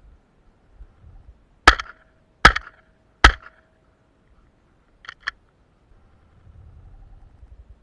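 Three shotgun shots fired in quick succession, about 0.8 s apart, followed by two faint clicks.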